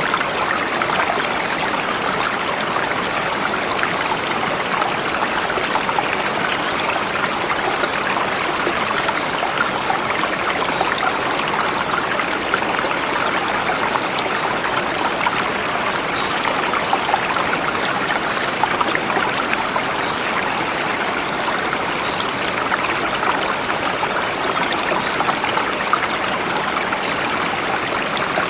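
Forest river flowing swiftly over rocks: a steady, even rush and babble of water.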